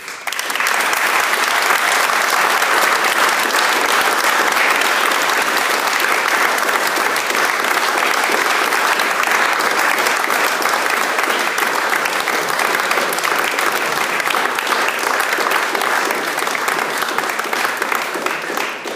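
Audience applauding, a steady round of clapping that starts at once and dies away near the end.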